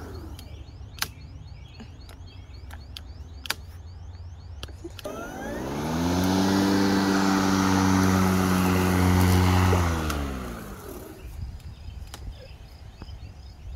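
EGO Select Cut 56-volt brushless cordless mower's blade motor spinning up with a rising hum about five seconds in, running steadily for about four seconds, then winding down. Before that come a few sharp clicks from the handle's start controls; the motor starts again right at the end.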